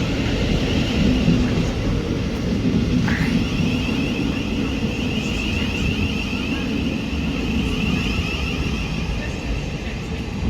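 Electric multiple-unit passenger train running into the platform: a steady rumble with a high whine on top, and a short rising squeal about three seconds in.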